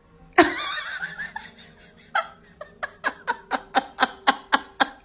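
Someone laughing: a loud outburst about half a second in, then rhythmic short bursts of laughter, about four a second, from about two seconds in.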